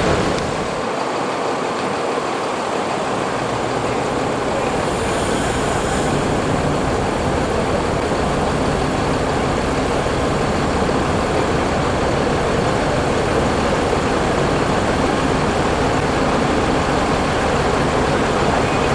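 Steady motor-vehicle noise, engine and road rumble running on without a break.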